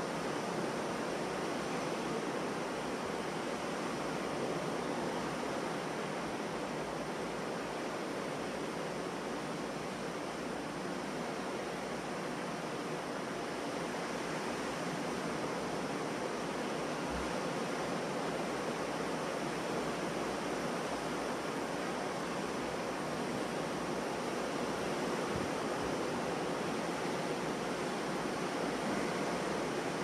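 Ocean surf breaking on a beach: a steady, continuous wash of waves.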